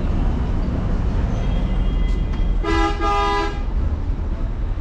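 A vehicle horn honks once for about a second, starting a little over two and a half seconds in, over a steady low rumble of vehicles.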